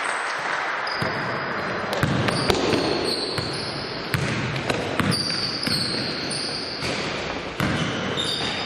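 A basketball bouncing on an indoor court, about half a dozen irregular knocks, with sneakers squeaking in short high chirps and the steady noise of a large sports hall.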